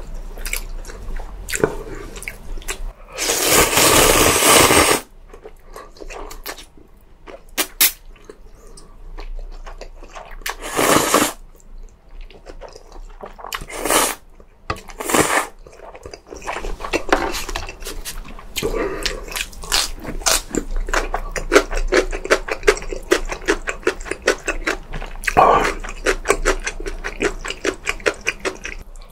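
Close-miked eating sounds: Chinese-Korean food chewed with dense, rapid wet clicks and smacks, broken by a few noisy slurps of noodles, the longest about three seconds in and lasting about two seconds.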